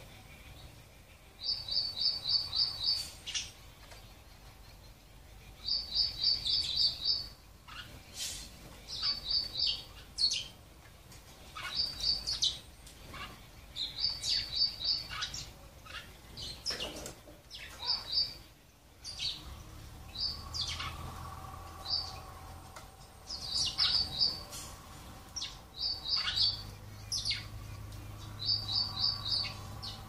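House sparrows chirping in quick runs of five or six high notes every few seconds, with single chirps in between.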